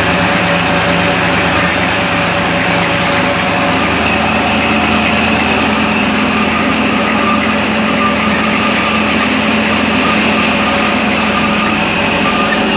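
Tractor engine running steadily under load, driving a small cotton ginning machine through its PTO shaft and belts, with the gin's pulleys and rollers turning. An even, unbroken machine sound with a few constant hums.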